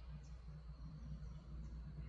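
A few faint, short, high bird chirps over a steady low rumble.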